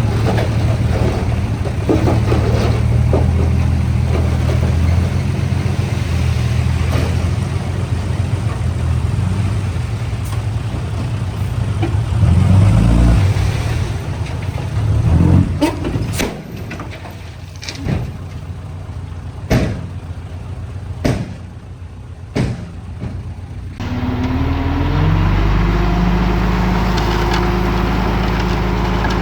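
Diesel engine of heavy earthmoving equipment running steadily, then a string of sharp clanks while the engine quietens. Near the end an engine comes in abruptly and its pitch rises as it revs up.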